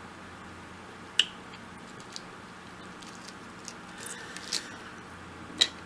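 Close-up wet eating sounds, with a few sharp mouth smacks and clicks while chewing sauce-covered seafood, the loudest about a second in and near the end. A steady low hum runs underneath.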